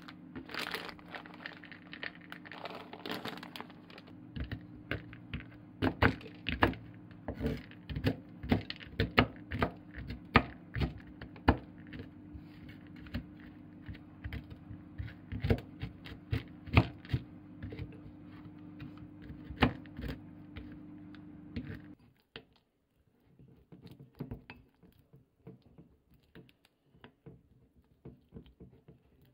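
A plastic snack bag crinkles as butter peanuts are poured out onto a wooden cutting board. A kitchen knife then chops the peanuts on the board with irregular sharp knocks, over a low steady hum. Near the end this gives way to softer taps and scraping of a wooden spoon mixing a sticky paste in a glass bowl.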